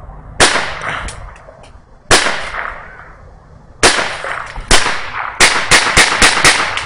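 .22 Long Rifle Desert Eagle pistol being fired, about ten shots. The first three come a couple of seconds apart, then the rest quicken into a rapid string of about six shots near the end.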